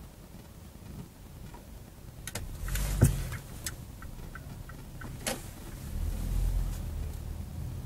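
Car pulling away from a standstill in city traffic: a low engine and road rumble that swells twice, with a sharp knock about three seconds in and scattered small clicks and ticks around it.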